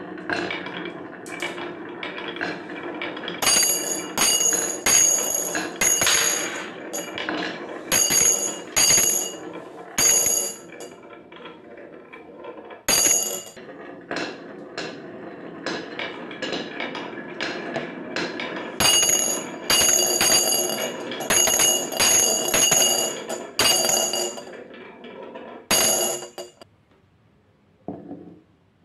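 Glass marbles rolling down a wavy wooden HABA marble track and dropping one after another into a glass jar, each landing a sharp ringing clink over a steady rolling rumble. The clinks and rolling die away near the end.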